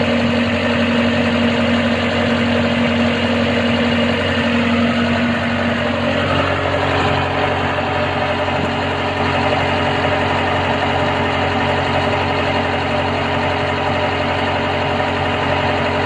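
Komatsu PC195-8 excavator's diesel engine running steadily, a loud even drone; one of its tones fades about six seconds in.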